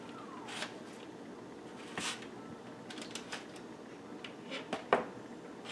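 Aluminium foil crinkling in a few short, separate rustles as cooked squirrel pieces are lifted out of it and set on a paper plate.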